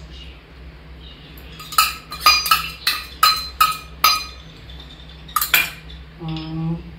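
Metal spoon clinking against a metal cooking pot: a quick run of sharp ringing taps, then two more about a second later.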